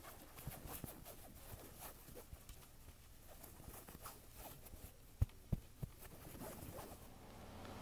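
Close-up scratching and rustling of black fuzzy fabric rubbed and squeezed by hand against the microphone, full of small crackles, with three low thumps in quick succession a little after five seconds in.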